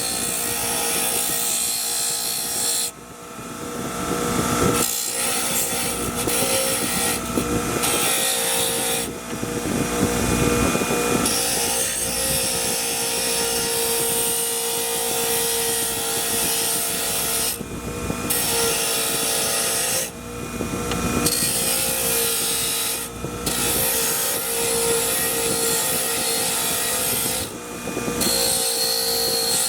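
A power tool running and working on a part, in a series of short clips that cut off suddenly every few seconds.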